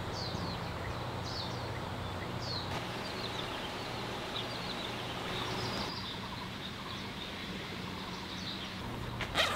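Outdoor morning ambience: many small birds chirping over a steady background hum. About nine seconds in there is one brief sharp noise.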